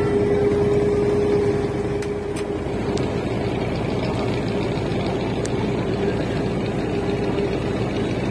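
Motor boat's engine running steadily, with a low rumble and a strong hum that weakens about two seconds in.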